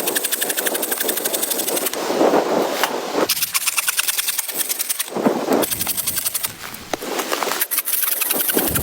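Rapid, dense pattering of wind-driven snow or sleet striking tent fabric, with gusts swelling every few seconds.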